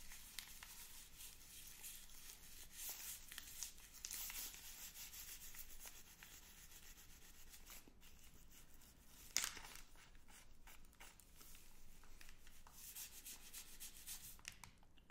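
Wrappers of two Magnum chocolate bars rubbed and crinkled close to the microphones, soft rustling with small ticks and one sharper crackle about nine seconds in.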